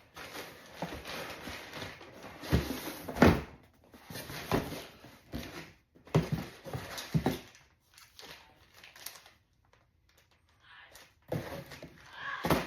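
Irregular scraping, rustling and knocking as a cardboard box is handled and opened, with a lull of a few seconds past the middle.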